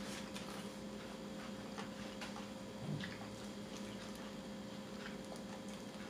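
Faint crinkling and small scattered clicks from a plastic bag of salsa being squeezed and handled, over a steady low hum.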